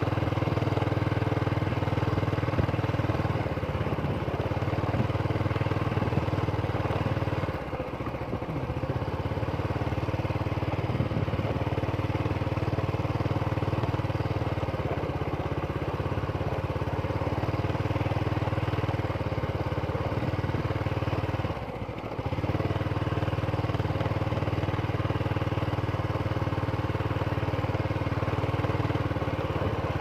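Motorcycle engine running steadily while riding, its note dropping briefly twice, about eight seconds in and again about twenty-two seconds in.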